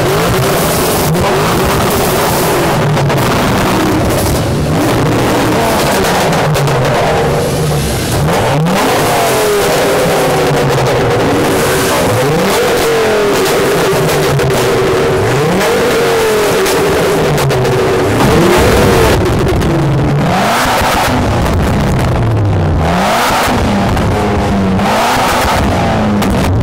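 Modified performance cars revving their engines through loud exhausts one after another, in repeated rev sweeps that rise and fall in pitch.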